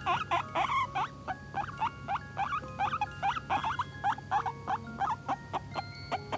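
A five-month-old guinea pig calling: a fast run of short, high squeaks that rise and fall in pitch, about three a second.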